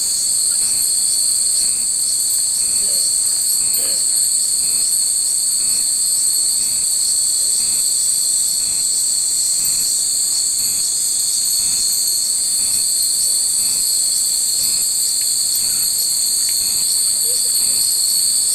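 Loud, steady chorus of summer cicadas, a continuous high-pitched buzz with a regular pulse about twice a second.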